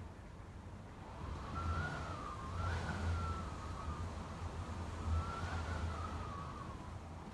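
Typhoon wind whistling in gusts, its pitch wavering up and down in two long swells, over a low rumble of wind buffeting the microphone.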